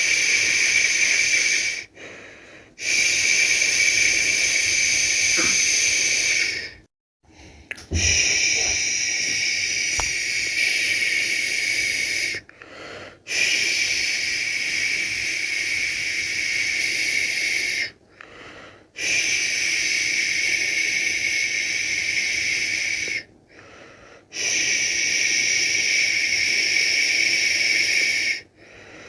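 A person shushing a baby to sleep: long, steady "shhh" sounds of about four to five seconds each, broken by short pauses for breath, about six in all.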